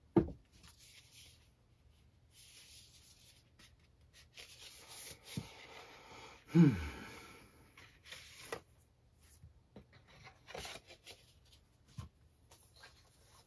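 Paper rustling and sliding as a 7-inch record and a folded lyric sheet are drawn out of a paper picture sleeve, with a few light taps. About halfway through, a brief low vocal sound falling in pitch.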